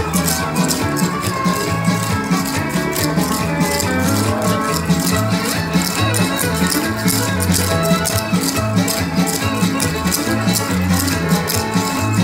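Clogging shoes' jingle taps striking the floor in fast, even rhythm as a team dances, over recorded dance music with a steady bass beat.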